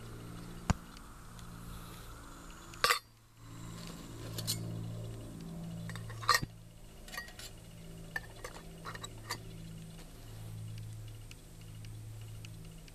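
Metal clinks and taps of a simmer ring being handled with a fork and set onto a brass spirit burner: a loud clink about three seconds in, another about six seconds in, then a run of small light taps. A low, pulsing drone runs underneath.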